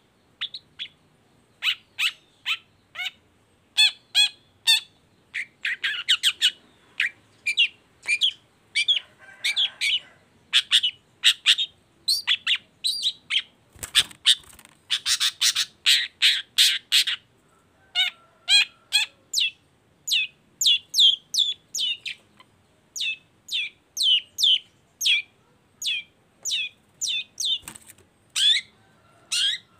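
Long-tailed shrike (cendet) singing hard: a fast, unbroken run of short, sharp chirps and harsh notes, densest about a fifth of the way in and again just past the middle. A single knock sounds about halfway through.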